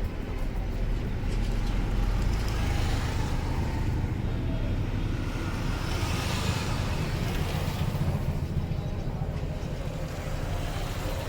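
Steady low rumble of road traffic, swelling as a vehicle passes about six seconds in.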